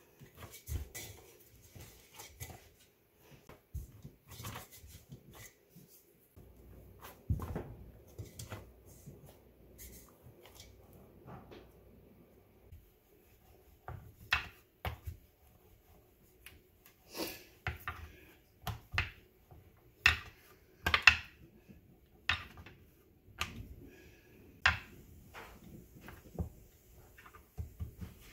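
Hand kneading of chapati dough in a stainless steel bowl, then a rolling pin rolling dough out on a countertop: scattered irregular clicks and knocks, louder and more frequent about halfway through once the rolling starts.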